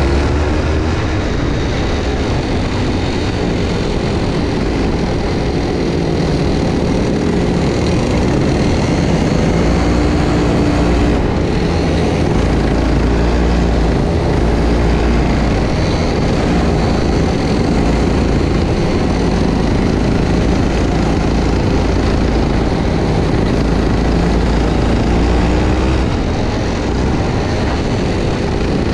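Go-kart engine running hard throughout, its pitch rising and falling as the throttle is worked, over a heavy low rumble.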